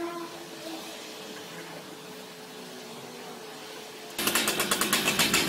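A faint steady hum, then about four seconds in a two-stroke chainsaw engine cuts in abruptly and runs loudly with a rapid pulsing beat.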